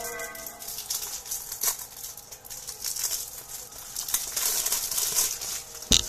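Plastic packaging being crinkled and torn open by hand, in irregular bursts, with one sharp knock near the end.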